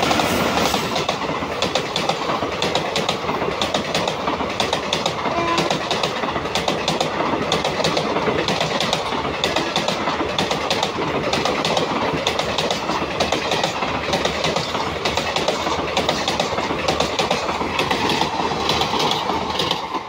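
Freight train passing at full speed: a steady rolling rumble with a rapid clatter of wagon wheels over the rail joints throughout, dropping away sharply at the very end.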